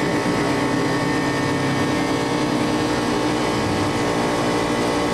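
Steady drone of an idling engine or machine, unchanging in pitch and level.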